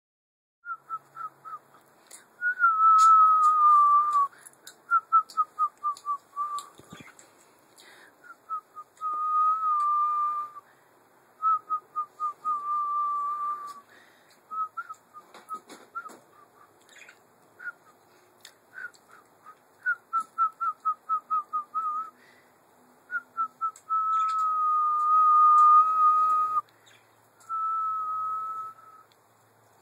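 A person whistling to a German Shepherd puppy to catch its attention: quick runs of short chirping notes alternate with long held notes that sag slightly in pitch, all at about the same pitch.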